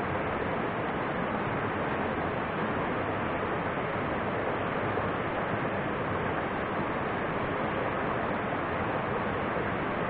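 Steady rushing of a mountain stream flowing over rocks.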